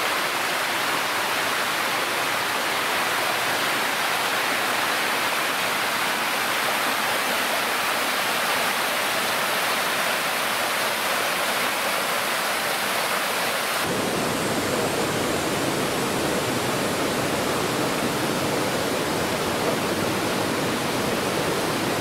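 Rocky stream water rushing steadily over rocks. A little past halfway the sound changes abruptly to a deeper, fuller rush.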